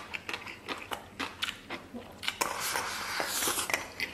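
Close-up chewing of a mouthful of rice: wet smacking clicks a few times a second. About two and a half seconds in comes a louder breathy hiss through the lips, lasting a little over a second.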